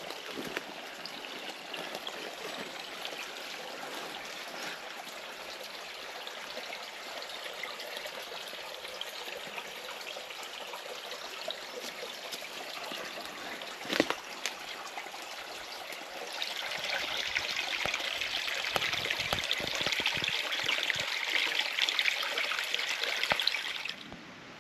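A small stream trickling over stones, a steady rush of water that grows louder for the last several seconds and then cuts off suddenly near the end.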